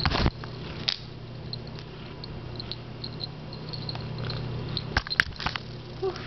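Handheld camera handling noise: a short rustle at the start, a click about a second in and a few sharp knocks and clicks around five seconds in, over a steady low hum.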